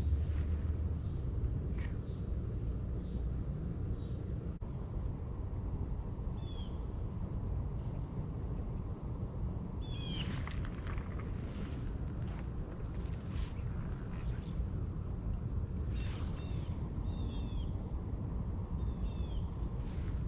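Insects trilling steadily on one high pitch, cricket-like, over a low rumble of background noise. A bird chirps a few times, around a third of the way in, at the halfway point and near the end.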